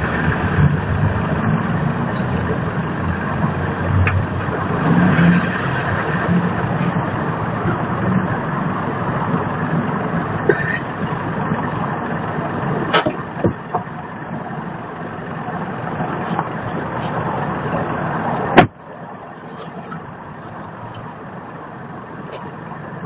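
Hyundai Getz engine running while the car is inched along on lowered air suspension, its rear tyre pressing a pipe wedged under the wheel-arch lip to roll the arch. A sharp knock about 18 seconds in, after which everything is quieter.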